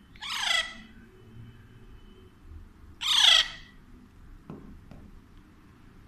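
Alexandrine parakeet giving two loud, harsh squawks about three seconds apart, each under a second long.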